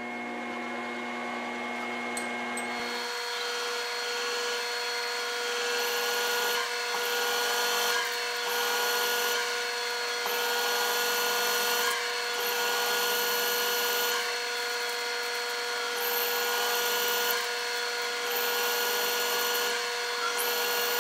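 Milling machine spindle running with a steady motor whine. From about three seconds in, a counterbore cuts into aluminium bar, adding a scraping hiss that swells and dips every second or two as the cut is fed down to the depth stop.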